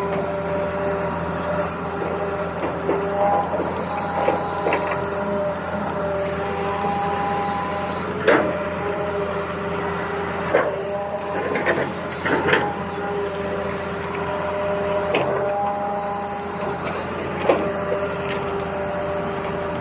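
Small battery-powered toy vehicle motors whirring in steady whines that change pitch and stop and start, with sharp plastic clicks and knocks every few seconds.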